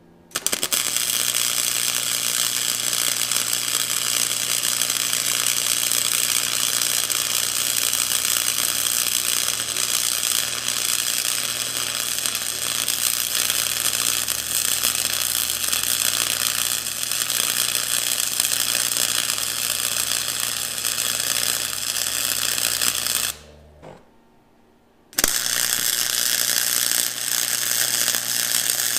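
Arc welding a practice T-joint in thin steel: the steady crackling sizzle of the welding arc, with a low hum under it. The arc stops after about 23 seconds, then strikes again a second and a half later.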